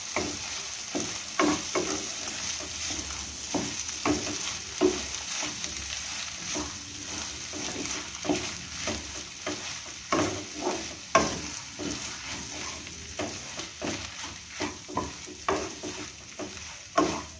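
Wooden spatula stirring and scraping shredded chicken through spiced oil in a frying pan, with irregular scrapes and taps over a steady sizzle as the chicken fries in the masala.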